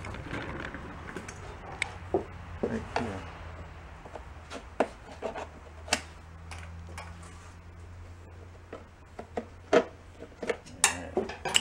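Scattered clicks, taps and short scrapes of a screwdriver prying at the plastic clips on an engine's fan shroud. The sharpest clicks come near the end, over a steady low hum.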